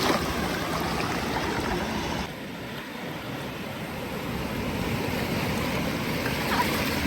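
Ocean surf breaking and rushing in the shallows, a steady wash of noise. It drops suddenly a little over two seconds in, then builds back up.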